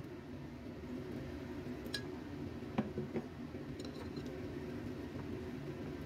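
Metal spoon stirring a wet flour-and-egg-yolk batter in a ceramic plate, clinking lightly against the plate a few times around the middle. A steady low hum runs underneath.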